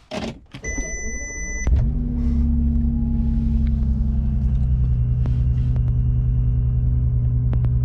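Bentley Continental GT started with its push button: the starter cranks for about a second under a brief high tone, the engine catches with a short rev, then settles into a steady idle.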